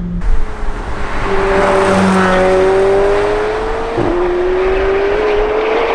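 McLaren 720S's 4.0-litre twin-turbo V8, on its standard exhaust, accelerating hard: the engine note climbs steadily, drops at an upshift about four seconds in, climbs again, and drops with another quick shift near the end.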